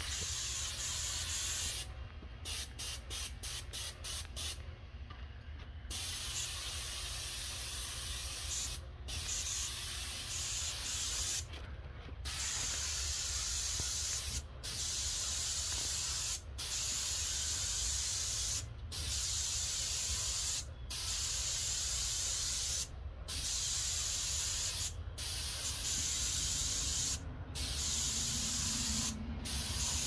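Graco airless paint sprayer hissing as its gun atomizes paint through a 310 fine-finish tip. The hiss stops for a moment about every two seconds as the trigger is released at the end of each vertical pass, with a quick run of short on-off bursts a couple of seconds in.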